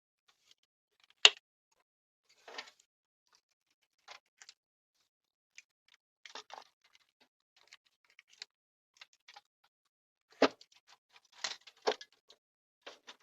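Scattered clicks and knocks of the boombox and its parts being handled while it is turned over and its bolts are worked on, with a sharp knock about a second in and a cluster of louder knocks near the end.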